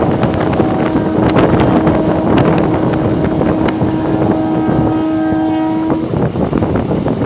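Locomotive horn sounding one long steady blast, with higher tones joining toward the end before it cuts off about six seconds in. Under it is the rumble and rail clatter of the train accelerating away.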